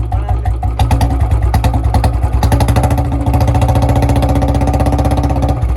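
2016 BS4 Royal Enfield Bullet's single-cylinder engine, fitted with a straight bend pipe and long Punjab bottle silencer, thumping at idle, then revved about a second in, held at higher revs for a few seconds and dropping back to idle near the end.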